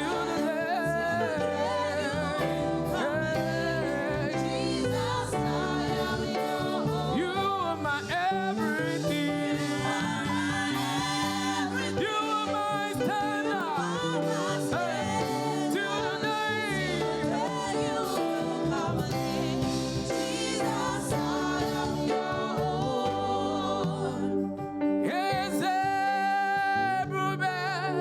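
Church choir singing a gospel praise song over instrumental accompaniment. Near the end the low backing drops away and a voice holds a long note.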